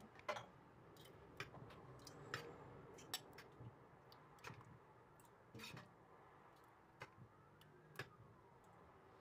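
Metal ladle clinking and tapping against a stainless steel pot and glass jars as thick strawberry jam is spooned into the jars: light, irregular clicks, a dozen or so.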